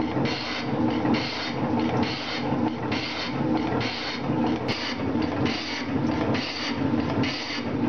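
Metal shaper running at about 60 strokes per minute, its ram working back and forth in a regular rhythm a little faster than once a second. A hissing scrape comes on each stroke as the round-nose tool planes cast iron.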